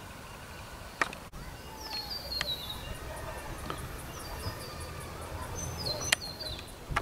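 Outdoor bush ambience: a bird calls twice in a short run of falling high chirps, over a low rumble and a faint, rapid, evenly spaced high insect ticking. Two sharp clicks, about a second in and near the end, are the loudest sounds.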